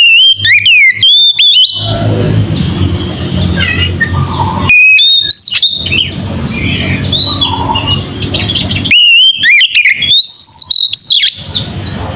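Oriental magpie-robin (kacer) singing loud, clear whistled phrases full of quick rising and falling glides. It comes in three bursts, at the start, about five seconds in and about nine seconds in, with fainter chirping between them.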